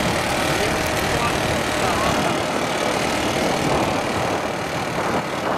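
Steady rumble of a vehicle driving slowly over grass, heard from on board, with faint voices in the background.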